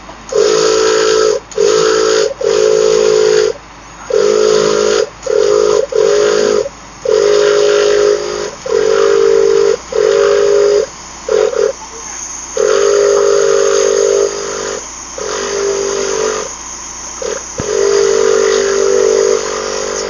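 Air whistling and hissing through a bicycle tyre valve in about a dozen short bursts, stopping and starting as the valve is worked by hand.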